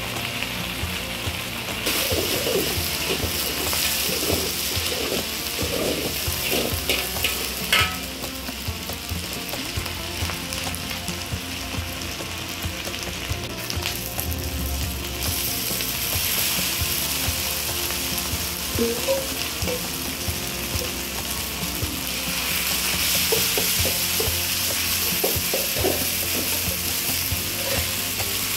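Food sizzling in hot oil in a pan, with scattered clicks and scrapes of a utensil stirring it. The sizzle swells louder a few times.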